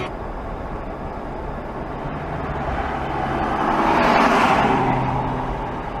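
Road noise of a car driving at speed, heard from a dashcam inside the car: a steady low engine and tyre hum that swells louder about four seconds in, then eases.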